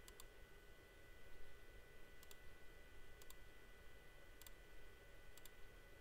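Quiet clicks of a computer mouse button, five of them spread through, each a quick double tick of press and release, over a faint steady high-pitched whine.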